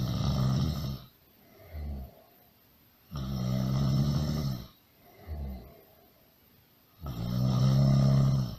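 Loud snoring: three long, rattling snores about four seconds apart, the first two each followed by a short, softer breath.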